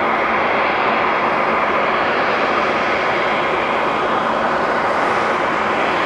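Airbus A330-300's Rolls-Royce Trent 700 turbofan engines running at taxi power: a steady jet engine noise that holds level throughout.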